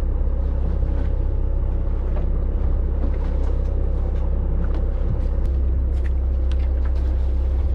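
Marine engine of a fishing charter boat running steadily, a constant low drone with a few light ticks over it.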